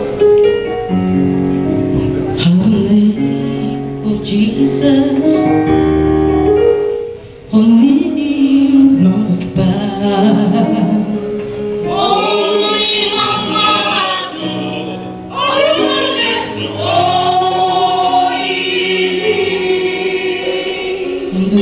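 Church choir singing a Yoruba gospel song, a woman's lead voice over held instrumental chords. The sound dips briefly about a third of the way in, and the singing grows fuller and higher in the second half.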